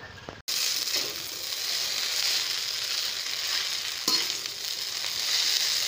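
Noodles sizzling as they are stir-fried in a large wok: a steady frying hiss that starts abruptly about half a second in, with a couple of sharp knocks of the metal utensil against the pan.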